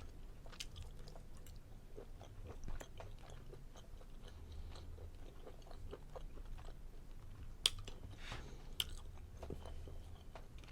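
Close-up chewing of prime rib, with soft wet mouth sounds and small irregular clicks, and two sharper clicks a little past halfway.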